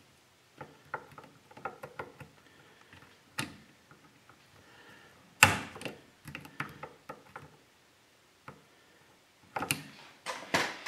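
Metallic clicks and knocks from hand work on a Maico 500 transmission output shaft clamped in a bench vise, as a circlip, washers and gears are worked off it. Small irregular ticks, a sharp knock about three and a half seconds in, a louder one about five and a half seconds in, and a quick cluster of knocks near the end.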